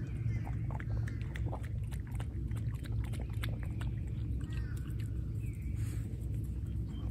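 A boxer dog stepping and nosing about in shallow water at a lake's edge: many small clicks and light splashes over a steady low rumble. A few short bird chirps come in near the start and again a little after the middle.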